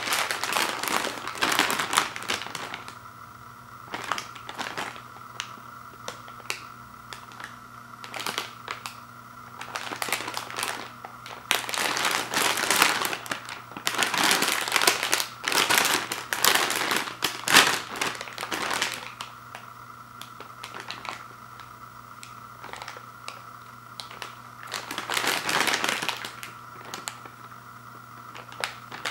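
Foil snack bag of popcorn crinkling in bursts as it is handled and turned over, with the longest and loudest stretch of crinkling about halfway through.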